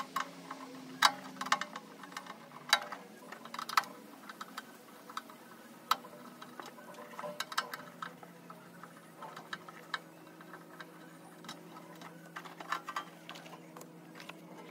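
Scattered light clicks and taps of a hand tool and small screws as the screws around a mini excavator joystick's mounting plate are backed out and handled, over a faint steady hum.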